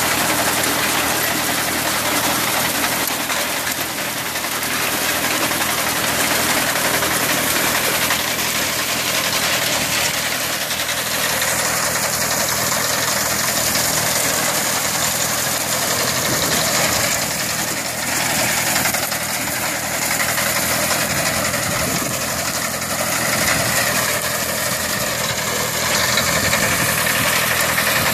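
Kubota 30 HP water-cooled diesel engine of a Yapel ÇDG-370 harvester-binder running steadily, with a dense mechanical rushing noise over it.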